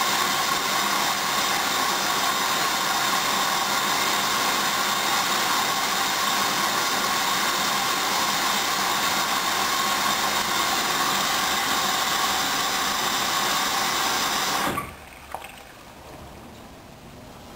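Hoover DYN 10124DP washing machine taking in water at the start of its main wash: a steady loud hiss of water rushing in through the inlet valve, with a faint hum, that cuts off suddenly near the end, followed by a small click.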